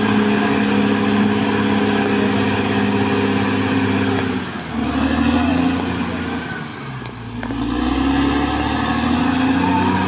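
Caterpillar D6R XL bulldozer's diesel engine running under load while it pushes soil. Its note drops and eases about halfway through, then climbs back up over the next few seconds as the machine works back and forth.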